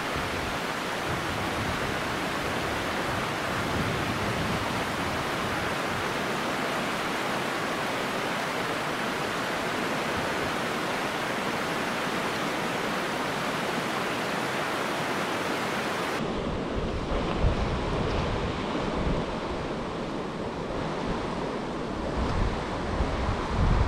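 Steady rushing water of a rocky mountain creek running over riffles and small drops. About two-thirds of the way through the sound turns duller and a low, uneven rumble of wind on the microphone comes in.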